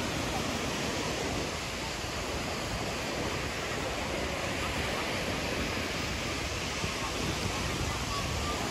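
Steady wash of sea surf breaking on a sandy beach, mixed with the murmur of beachgoers' voices.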